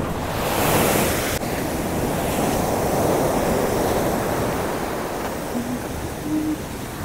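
Heavy sea surf on the shore: a wave breaks and washes in about a second in, then the steady rush of surf swells and ebbs.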